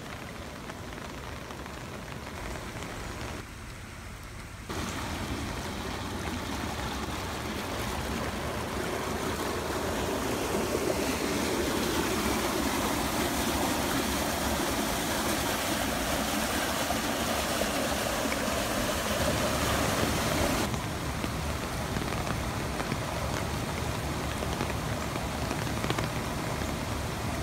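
Rain falling and floodwater running, a steady rushing noise that changes abruptly a few times. It starts as rain on a wet road beside a flooded ditch, grows louder as water rushes around a storm-drain box, and ends with runoff pouring down a concrete spillway.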